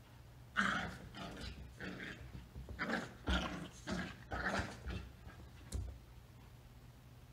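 Rat Terrier puppies play-growling while wrestling: a quick run of short growls over about four seconds, followed by a single click.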